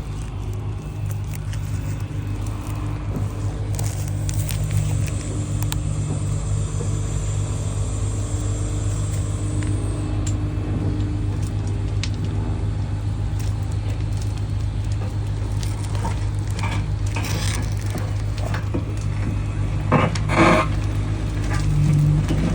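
Excavator's diesel engine running steadily, with a few short knocks and scrapes near the end.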